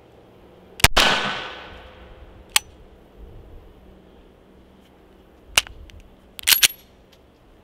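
A single 9mm shot from a Glock 19X pistol about a second in, with a long echoing tail. Later come a lone click and then a quick group of metallic clacks as the slide is worked by hand to clear a jam, a stoppage put down to a poor grip.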